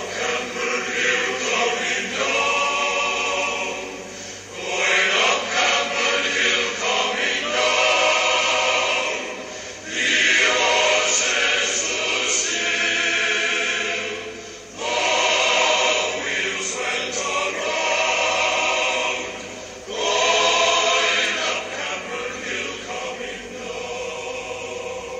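A choir singing, in phrases of about five seconds with short pauses between them.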